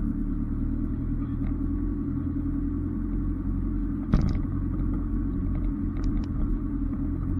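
Off-road 4x4's engine running at a steady low rumble, with a single knock about four seconds in.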